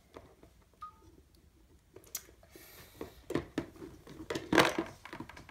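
Small plastic toy figures being handled and set down on a cardboard shoebox, giving several light knocks and rustles. The loudest knock comes about three-quarters of the way through.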